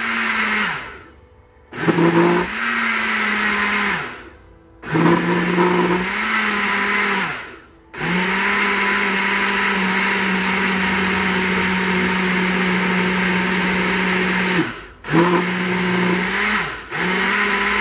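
Countertop blender motor blending a thick smoothie of frozen blueberries, run in bursts. It stops and restarts about six times, with one longer run of about seven seconds in the middle. Each start rises quickly to a steady pitch and each stop winds down.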